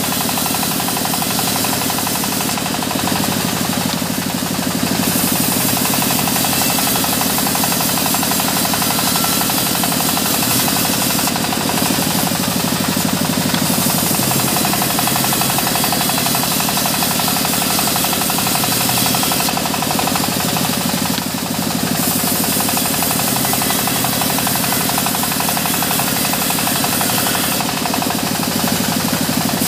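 Band sawmill running and sawing lengthwise through a waru (sea hibiscus) log: a loud, steady mechanical noise with a fast, even pulsing.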